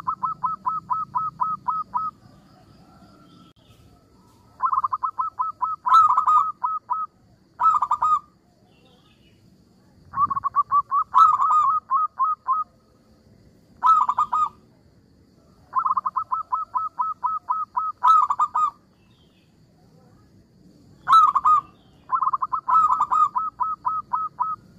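Zebra dove (perkutut) singing its cooing song: quick runs of soft, evenly spaced coos, about five a second, in phrases of half a second to nearly three seconds, repeated about eight times with short pauses.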